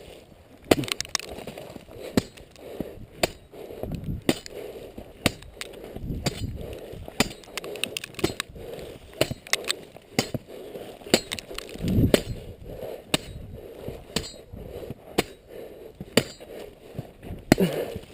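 A large sword chopping repeatedly into the packed snow of a snow fort: sharp strikes and crunches, about one a second.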